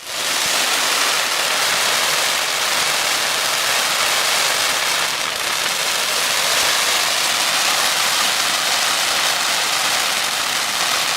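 Steady hissing of a fountain firework spraying sparks.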